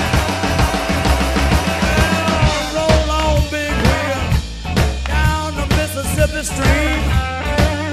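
Instrumental break of a blues band recording: a harmonica plays a lead line of bending notes over a drum kit keeping a steady beat and a bass line.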